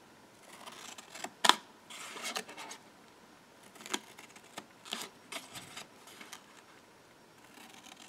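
Small scissors snipping a slit into patterned paper: a series of short, sharp cuts, the loudest about a second and a half in.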